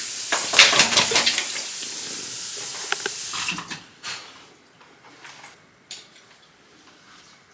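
Water running from a tap as a steady hiss, shut off abruptly about three and a half seconds in; a few light knocks follow.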